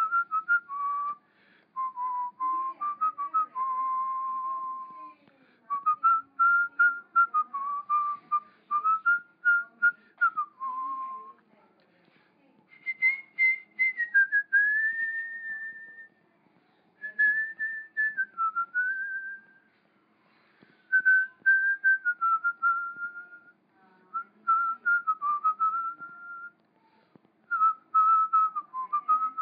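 A person whistling a melody, in phrases of a few seconds with short pauses between them.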